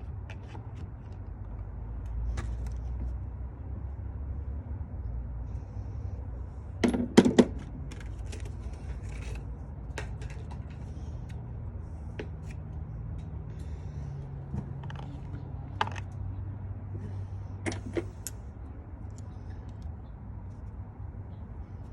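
Metal hand tools clinking and clattering during a spark plug job: a sharp cluster of clinks about seven seconds in, then a few single ticks, over a steady low hum.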